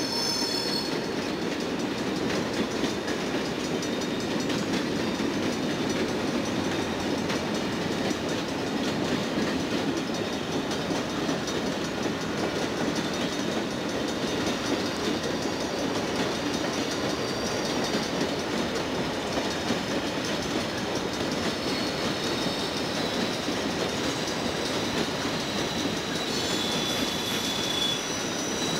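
A freight train's cars rolling past close by: a steady rumble and clatter of steel wheels on the rails. Thin high wheel squeals come in briefly near the start and again near the end.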